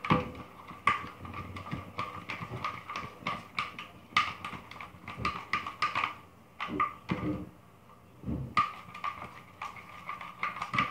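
Utensil stirring clear glue slime in a small plastic cup, clicking and tapping against the cup in irregular runs as activator is worked in and the slime begins to clump. There is a short lull a little past the middle.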